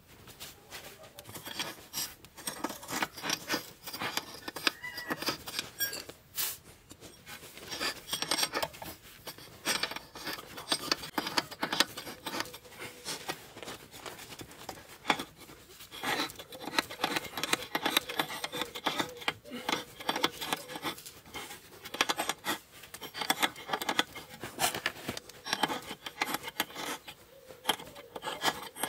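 Hand socket ratchet clicking in quick, uneven runs of strokes as a bolt on a car's upper suspension control arm is turned, with small metallic clinks of the tool against the fitting.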